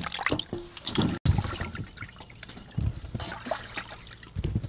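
Water trickling and dripping back into a steel basin as hands lift and swish food items in it, with a few soft knocks.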